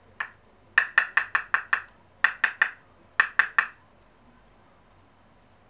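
A makeup brush tapped against the edge of a small plastic jar of loose setting powder to knock off the excess powder. The sharp taps come as one, then six quick ones, then two runs of three.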